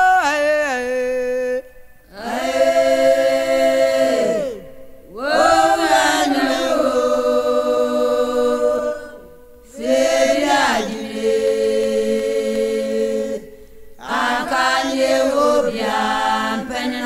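Chanted singing in five long held phrases, each sliding down in pitch at its end, with short breaks between them.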